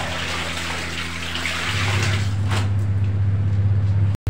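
Water splashing and sloshing as a soaked jacket is dunked, lifted and squeezed by hand in a plastic tub of rinse water, over a steady low hum. The sound cuts off suddenly near the end.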